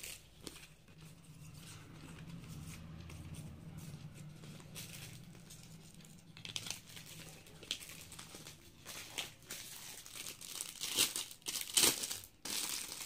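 Clear plastic packets crinkling as they are handled and pulled open, in short crackling bursts that pick up about halfway through and are loudest near the end. A faint low hum sits under the first half.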